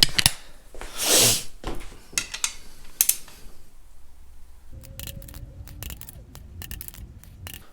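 Metal tools being handled: a few sharp clicks and a short rustle, then from a little past halfway a quick run of light clicks over a faint steady hum.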